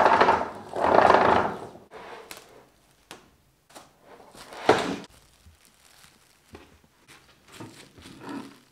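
Plastic cling film pulled off its roll in two long pulls, torn off against the box's cutter edge with a sharp rip about halfway through, then crinkling as the film is pressed over a plate.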